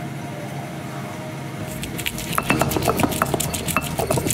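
Background music, then from about two seconds in a quick, irregular run of metallic clinks and knocks as kitchen utensils and pots are handled.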